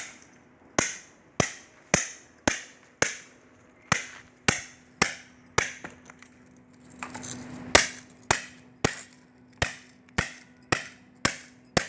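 Hammer blows on metal, sharp and evenly paced at about two a second, as a scrap electric water heater's metal sheath is cut open. The blows pause briefly about seven seconds in for a rougher rustling scrape, then carry on.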